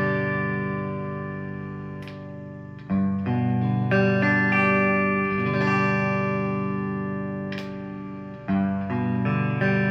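Sire S7 Vintage electric guitar with single-coil pickups, playing clean-tone chords that are strummed and left to ring out. A new chord comes every second or few.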